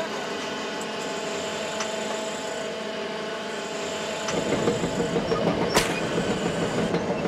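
A fishing boat's engine and deck machinery running steadily, turning louder and rougher about four seconds in, with one sharp knock near six seconds.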